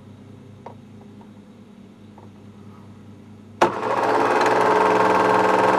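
Home movie film projector: a faint low hum with a few small ticks while it holds a still frame. About three and a half seconds in, a sharp click, and the projector starts running forward, its motor and film transport whirring loudly and steadily with a regular pulse.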